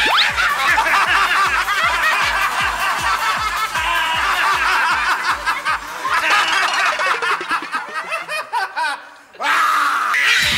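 A group of voices cackling and shrieking with laughter over background music with a quick steady beat. The voices thin out from about seven seconds in, and the sound dips almost to silence for a moment before the music picks up again near the end.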